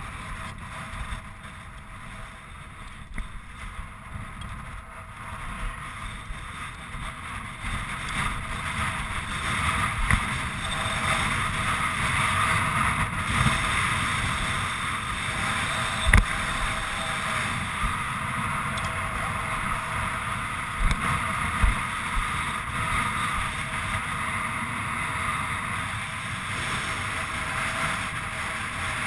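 Wind buffeting a head-mounted camera's microphone as a steady rush that grows stronger about a third of the way in, with a few short knocks and one sharp knock about halfway through.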